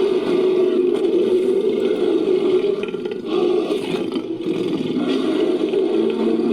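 Designed creature sound effect: a long, rough, low roar made from layered animal and monster roars, running without a break and dipping briefly about three seconds in.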